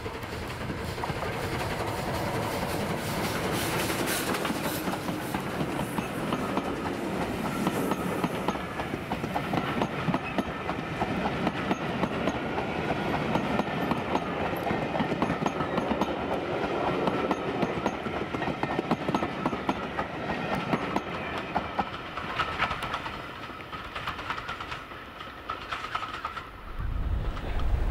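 Steam locomotive and its train of coaches running past, with wheels clicking rhythmically over the rail joints and a steady high whine under the clatter of the coaches, fading as the train draws away. Wind buffets the microphone with a loud low rumble near the end.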